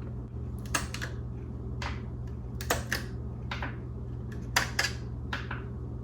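Irregular light clicks and taps of hands working on an instrument cluster, pulling at its gauges and circuit board, with a steady low hum underneath.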